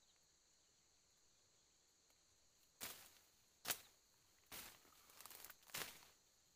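Leafy undergrowth rustling and crackling as a person moves and works in the brush: a run of rustles with a couple of sharp snaps of stems. A faint steady insect hum is heard before it starts.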